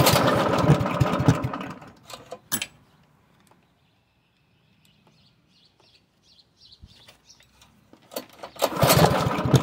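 Honda HR215 lawnmower engine pulled over on its recoil starter twice: about two seconds of cranking at the start and again near the end, each dying away without the engine keeping running.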